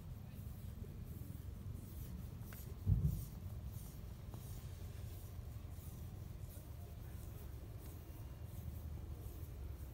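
Domestic cat purring, a steady low rumble, with a single dull thump about three seconds in.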